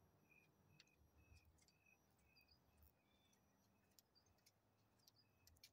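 Near silence: faint short chirps repeating about twice a second, with a few faint clicks.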